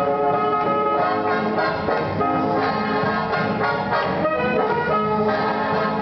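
Live big band playing swing dance music, the brass section carrying the melody.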